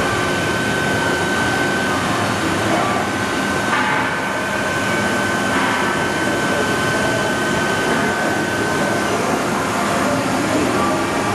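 Johnford DMC-3000 bridge-type vertical machining center running a program on dry run, without cutting: loud, steady machinery noise with a steady high whine that stops about nine seconds in.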